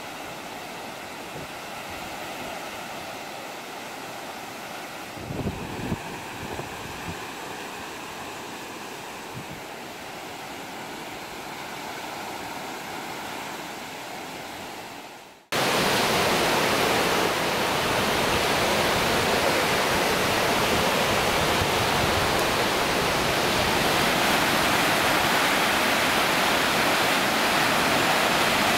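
Surf washing onto a sandy beach in a steady, even wash of waves, with a couple of brief low thumps about five seconds in. Halfway through it cuts abruptly to a much louder, steady rushing noise.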